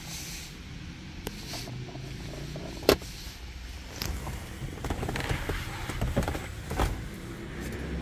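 Clicks and handling sounds inside a car over a low steady rumble, with a sharp click about three seconds in and another near the end.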